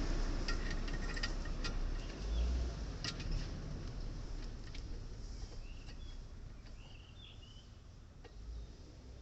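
A few sharp clicks and taps in the first few seconds over a low background rumble, then a few faint short chirps, like a small bird calling, in the second half.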